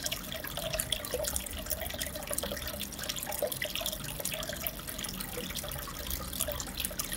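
Aquarium water trickling and bubbling steadily, with many small drips and splashes.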